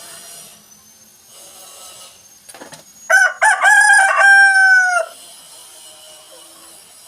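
Rooster crowing once, about three seconds in: a few short broken notes, then a long held note that drops away at the end, about two seconds in all.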